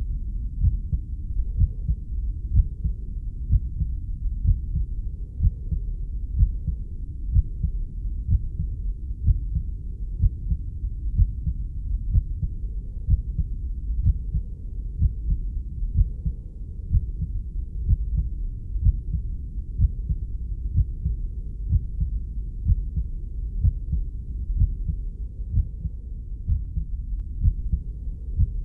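Muffled heartbeat: a steady low thudding, about one beat a second, over a continuous low whooshing rumble.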